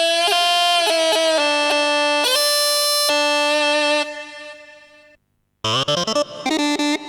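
Korg Krome keyboard playing a reedy, bagpipe-like ethnic wind patch: a melody with quick grace notes that fades out about four seconds in. After a short silence a different patch starts near the end with a run of quick notes.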